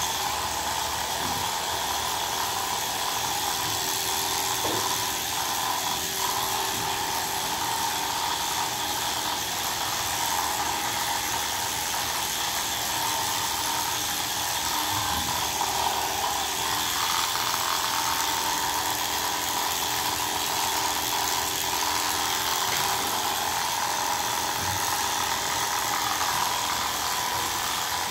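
Electric pet grooming clipper running with a steady buzz as it shaves a Persian cat's coat.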